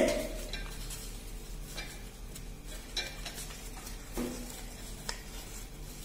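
Origami paper rustling and crinkling as it is folded and pressed by hand, with a few faint ticks against the tabletop, over a steady low hum.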